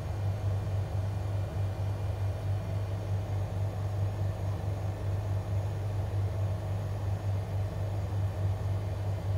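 A steady low hum with an even hiss over it, unchanging throughout, with no distinct events.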